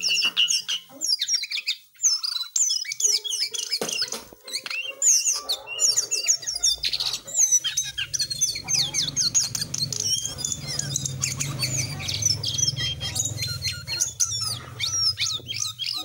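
Caged jongkangan songbird singing a fast, unbroken stream of varied chirps and trills. A low rumble runs underneath from about six seconds in.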